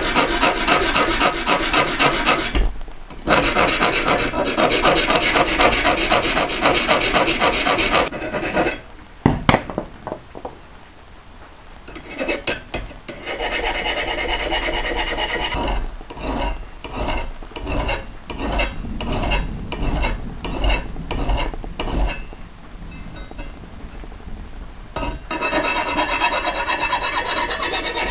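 Hand file scraping back and forth along the edge of a steel shovel blade, sharpening it. Fast, steady strokes at first, a pause with a single click, then slower separate strokes, and quick strokes again near the end.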